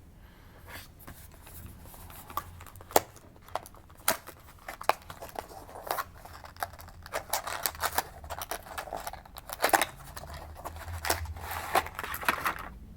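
A small product box and its packaging being opened and the contents handled: scattered sharp clicks and taps with soft rustling.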